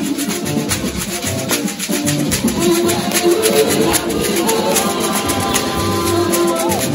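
Lively worship music led by a sekere, a beaded gourd rattle, shaken in a steady driving rhythm over sustained sung or played notes.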